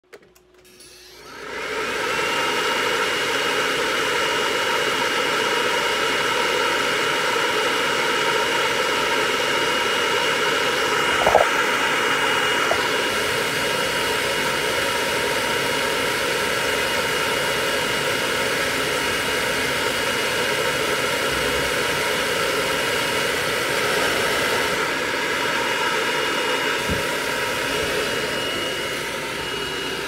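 Electric dryer switched on about a second and a half in, its motor whining up to speed and then blowing steadily, drying a wet cat.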